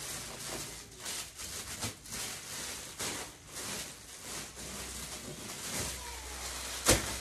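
Rustling and handling noises with scattered light knocks, as garments are picked up and moved about, and one sharp knock near the end.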